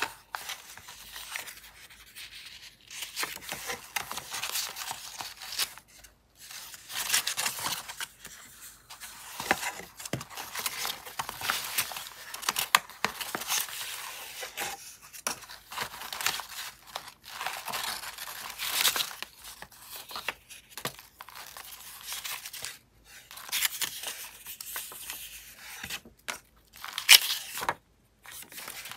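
Paper scraps rustling, sliding and crinkling as they are handled and leafed through in a kraft-paper box, in uneven bursts with short pauses. One sharper, louder paper crackle comes a couple of seconds before the end.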